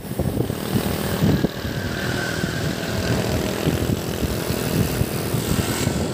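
Wind buffeting the microphone of a camera carried on a moving bicycle: a steady rushing rumble, with motorcycle traffic passing on the road.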